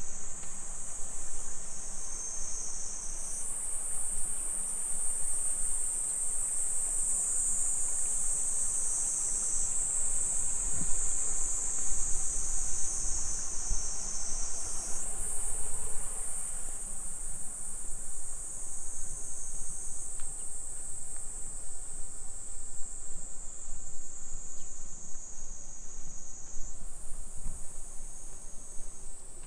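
A steady, high-pitched insect chorus whose pitch shifts abruptly a few times, over faint low street rumble.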